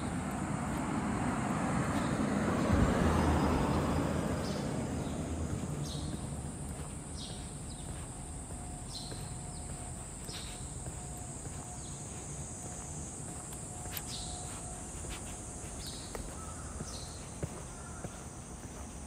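A vehicle passes by, its noise rising to a peak about three seconds in and fading away over the next few seconds. After that, light footsteps click on the pavement at an irregular pace.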